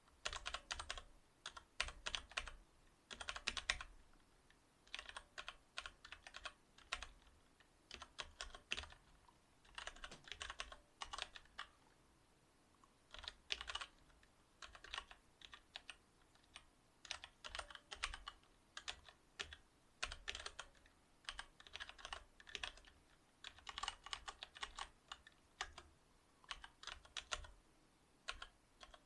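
Typing on a Cherry MX Board 8.0 mechanical keyboard with Cherry MX Silver linear switches: quick runs of key clicks broken by short pauses.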